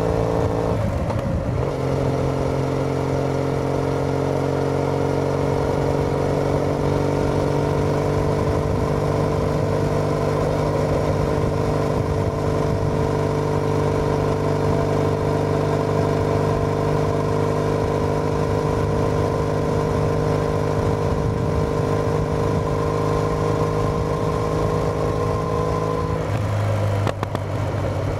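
Triumph Bonneville T214's 865 cc air-cooled parallel-twin running through an aftermarket TOGA exhaust, heard from the rider's seat while cruising at a steady speed. The engine note shifts about a second in and again near the end, as with a change of throttle or gear.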